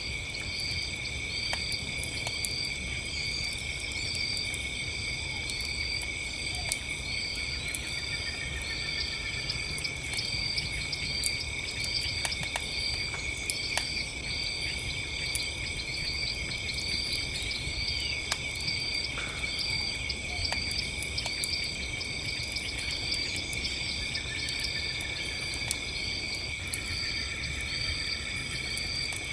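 A steady chorus of crickets and other night insects, one of them chirping about once a second, with sharp pops and crackles from a burning campfire scattered throughout over a low rumble.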